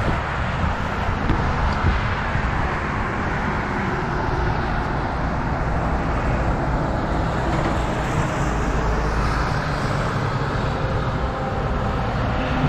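Steady vehicle and road-traffic noise, with a low swell about eight to ten seconds in.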